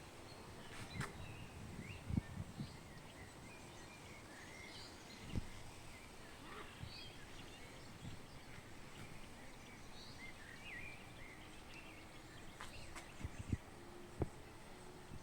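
Several small birds chirping and warbling faintly in short, scattered phrases over steady outdoor background noise, with a few soft low knocks near the start and near the end.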